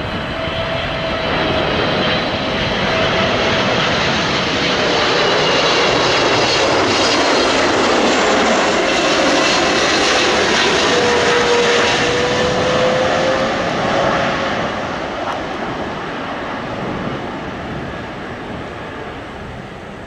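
Boeing 777 airliner's twin jet engines on final approach: a rushing roar with a steady whine that swells as the aircraft passes close, sinks a little in pitch, then fades over the last few seconds as it comes down to land.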